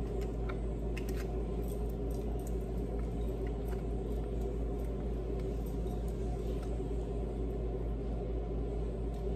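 Steady low hum of background noise, with a few faint light clicks and rustles from hands working food in a foil-covered pan.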